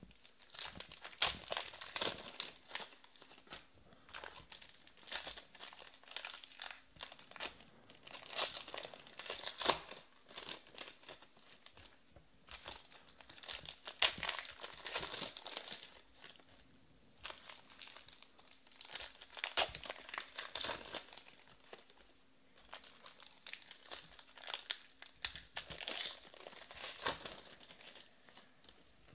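Foil wrappers of Panini Prizm baseball card packs crinkling and tearing as they are ripped open by hand, in bursts about every five or six seconds.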